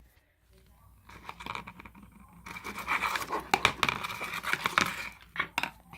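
Homemade shampoo-and-salt slime being worked in the bowl: a run of wet clicks and scratching starts about a second in, grows busier, then dies down near the end.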